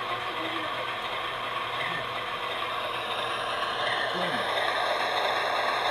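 MTH RailKing RS-5 O-gauge model diesel locomotive running on its track, a steady whirring and rattling of motor and wheels. It gets louder in the second half as the engine comes closer.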